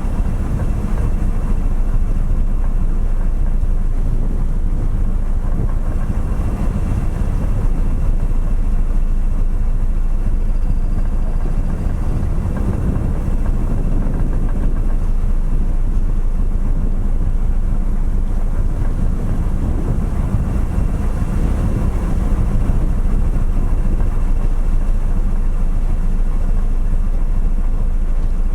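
Steady low drone of the Sakurajima ferry's engines, heard on board, with an even rushing noise over it as the ferry comes into port.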